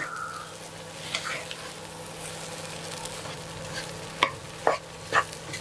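A spatula stirring and scraping a dry mashed potato and tin fish cutlet mixture in a nonstick pan as it fries, with a steady sizzle under the scraping. Near the end the spatula knocks against the pan three times.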